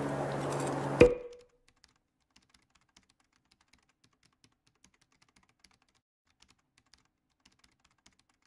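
A sharp metallic click with a short ring about a second in, as the steel circlip is fitted onto the turbo core. After it comes near silence broken by very faint, irregular keyboard-typing clicks.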